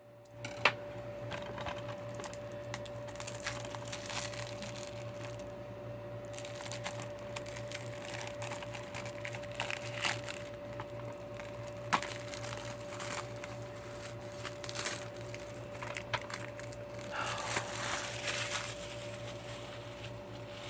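Plastic DVD case being handled and opened, with scattered sharp clicks and crinkling of plastic. A steady faint hum runs underneath.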